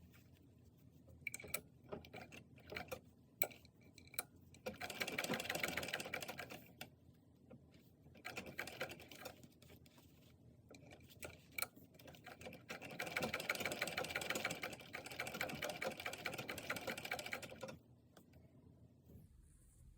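Sewing machine stitching a seam in runs: one of about two seconds, a short one, then a longer run of about five seconds. Scattered clicks and taps come before the first run.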